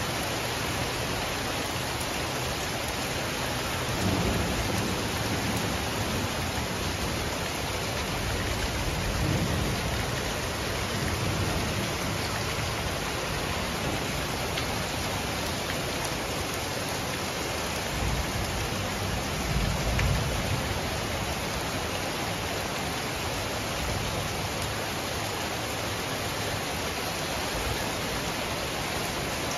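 Heavy rain falling steadily during a thunderstorm. Several low rolls of thunder come and go through it, the strongest near the start and about two-thirds of the way through.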